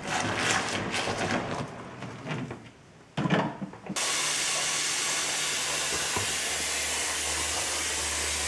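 Cold water poured from a plastic jug into a plastic fermenting bucket of foamy wort, splashing for about three seconds. After a brief lull and a short knock, a steady, even hiss with a low hum takes over about halfway through and cuts off abruptly at the end.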